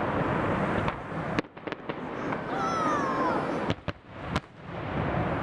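Fireworks going off in a display finale: a continuous rumble of distant bursts, with several sharp cracks. A brief falling, meow-like tone comes near the middle.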